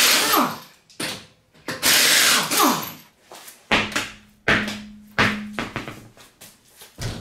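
Air impact wrench spinning off wheel lug nuts in two loud bursts, each winding down in pitch as it stops. A few sharp knocks and thumps follow as the wheel comes off and is set down.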